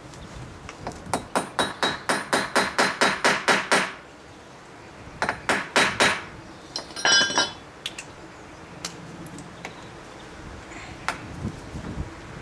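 Steel hammer blows on a hand impact driver held against a seized screw. A fast run of about a dozen and a half sharp metallic strikes, about five a second, comes first, then a pause and four more blows. About seven seconds in there is a short ringing metal clink.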